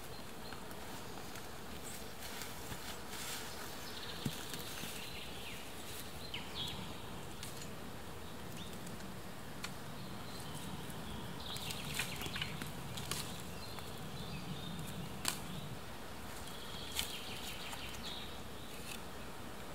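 Dry sticks and moss handled and laid onto a stick-and-moss teepee shelter: rustling, with scattered sharp clicks of twigs knocking together. A low buzz runs through the middle stretch.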